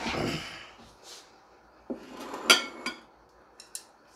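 Kitchen utensils and dishes clinking and scraping: a short scrape at the start, a sharp ringing clink about halfway through, and two light ticks near the end.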